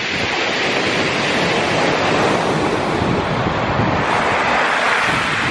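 Sea waves breaking and washing up a steep shingle beach at high tide, a steady rushing surf that swells twice as the water surges over the shingle bank.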